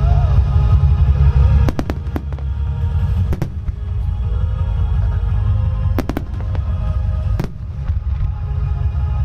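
Starmine fireworks display: a continuous deep rumble of shells bursting, broken by sharp cracks in small clusters a few times. Music plays underneath.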